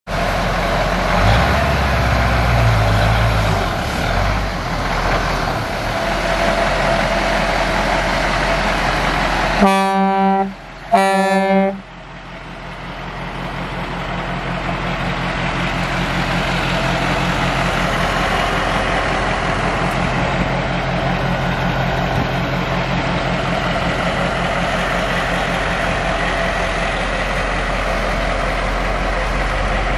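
Turbocharged Caterpillar 3208 V8 diesel of a mini semi truck running, broken by two short blasts of its air horn about ten and eleven seconds in, each a single steady pitched tone. After the horn the diesel idles steadily.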